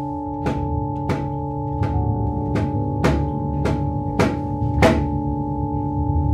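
Soundtrack music: a held low chord with a sharp drum-like hit about every half second, the hits stopping about five seconds in.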